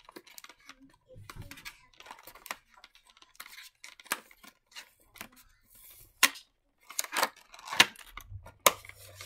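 Fingernails scratching and picking at the seal of a cardboard phone box, then several sharp snaps and rips as the seal tears and the flap is pulled open, loudest in the second half.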